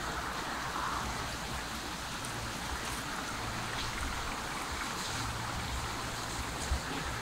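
Steady outdoor background hiss, with a brief low thump near the end.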